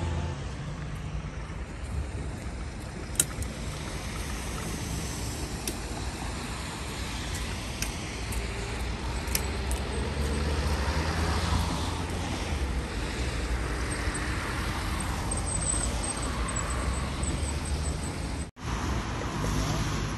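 Steady city street traffic noise, cars passing with a low rumble, and a few sharp clicks in the first half. The sound drops out for an instant near the end.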